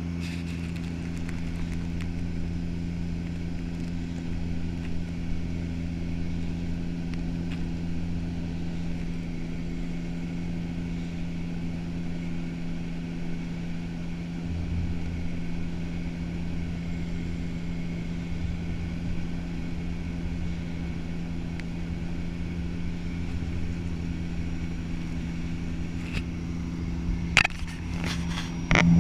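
Turboprop airliner's engines and propellers heard inside the cabin during descent: a steady drone of several low tones over a rumble. Near the end a quick run of sharp clicks joins in.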